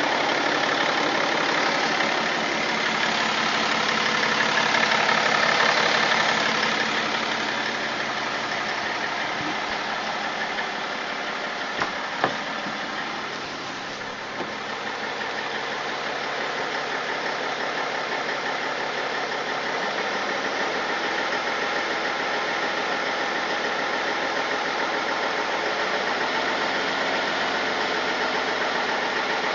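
BMW M57 straight-six diesel engine running steadily, carrying an extraneous noise whose cause the owner cannot identify. Two sharp clicks stand out about halfway through.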